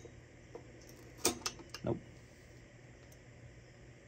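A few short metallic clicks and knocks of transmission parts being handled, bunched together a little over a second in.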